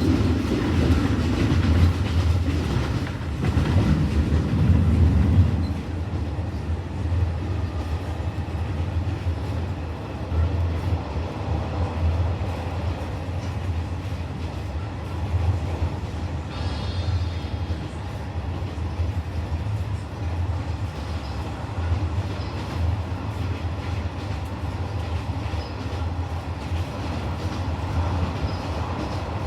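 Passenger train running on the rails, a steady low rumble of wheels on track with some clickety-clack, louder for the first six seconds or so.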